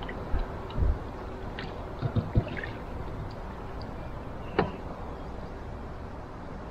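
Canoe paddling: double-bladed paddle strokes dipping and dripping water over a steady wash of noise. A few low thuds come about half a second and two seconds in, and a sharper knock comes past the middle.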